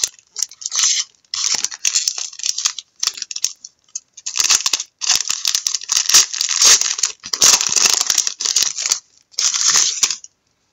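Trading card pack's wrapper being torn open and crinkled by hand, in a run of crackly rips and rustles that stop shortly before the end.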